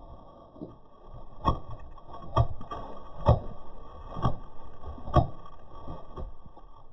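A Belgian Malinois shaking mud off its head, heard slowed down: a run of evenly spaced heavy flaps of the ears and jowls, about one a second, each followed by a short smear.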